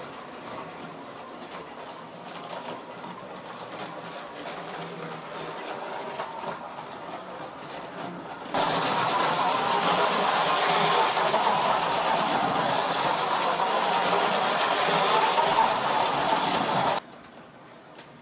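Electric toy train's motor and wheels running on the track, a steady mechanical whir. About halfway through it suddenly becomes much louder, then drops back abruptly near the end as the train is set to slow.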